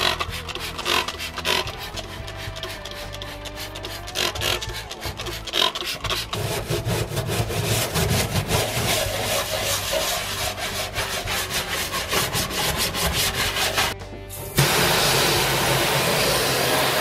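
A stiff hand brush scrubs degreaser over a rusty steel car floor pan in quick rasping strokes. After a short pause near the end, a garden-hose spray nozzle opens with a steady hiss to rinse the floor.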